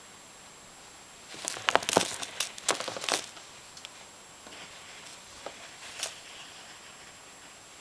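Ocellated skink scrabbling through loose sand against the plastic enclosure wall: a burst of scratchy rustling and sharp clicks from about one and a half to three seconds in, then a few faint ticks.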